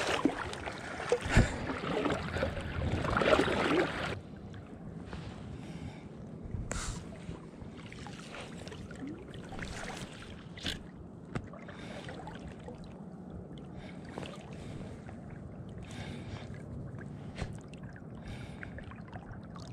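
Close water splashing and sloshing around a wading angler for about four seconds, then an abrupt drop to a quieter, steady wash of river water with a few light ticks.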